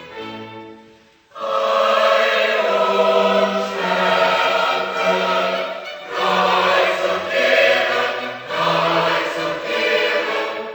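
Choral music: a choir singing, coming in loudly after a brief quiet gap about a second in and going on in phrases with short breaks.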